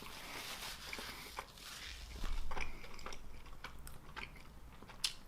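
A person chewing a mouthful of pizza close to the microphone, with scattered small mouth clicks.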